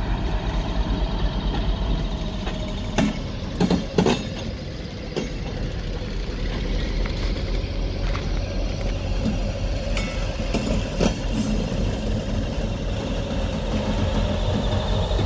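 Class 60 diesel locomotive's engine running steadily as the steel train moves slowly, with wind buffeting the phone's microphone. A few sharp knocks come about three to four seconds in and again about ten to eleven seconds in.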